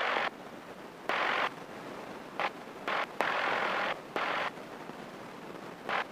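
Hiss over a light aircraft's headset intercom, cutting in and out abruptly in about six short bursts, the longest under a second, with a fainter steady hiss between them.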